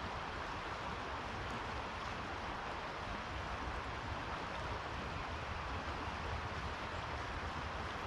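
Steady outdoor ambience by open water: a constant, even rushing noise with a low rumble underneath and no distinct events.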